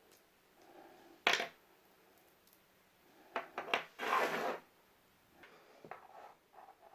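Nuts clicking onto and scraping across a 550 kg clamp fishing magnet: a sharp click about a second in, a few quick clicks around three seconds in, then a short scrape.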